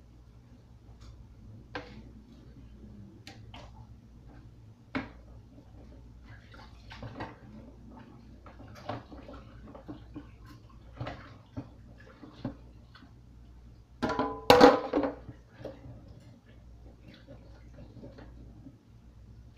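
Dishes and utensils knocking and clinking in a stainless steel sink as they are washed up, with a louder ringing clatter about three-quarters of the way through.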